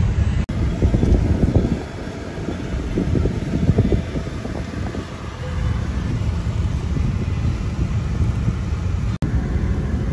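Steady low road and engine rumble inside a moving car's cabin, louder and rougher during the first few seconds.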